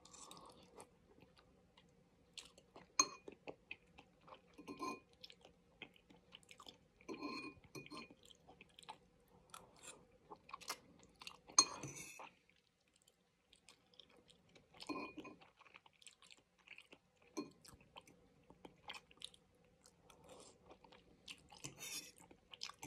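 A person eating udon noodles close to the microphone: wet chewing and slurping, with a few sharp clicks of a metal fork against the bowl, the loudest about halfway through.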